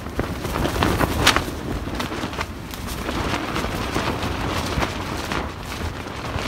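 Strong gusty wind buffeting a dome tent: the nylon fly flaps with several sharp snaps, the loudest about a second in, over a low rumble of wind.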